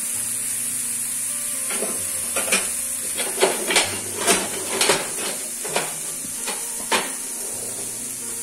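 Steady sizzle of vegetables and basa fish frying in oil in pans on a gas stove. From about two seconds in comes a run of sharp clicks and knocks of a utensil against a pan.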